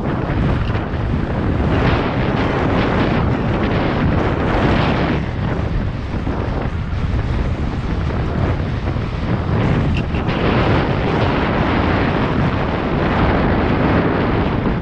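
Wind rushing over a GoPro's microphone as a mountain bike descends a dirt downhill trail, with the tyres rolling and a constant clatter of small knocks from the bike over rough ground.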